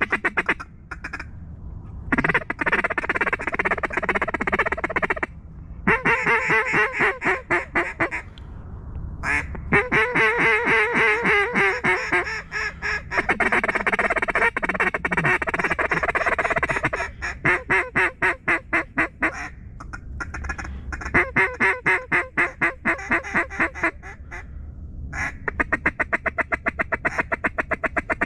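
Mallard duck call blown in sequences of fast quacks and feed-call chatter, broken by short pauses. It is calling to incoming mallards to draw them in.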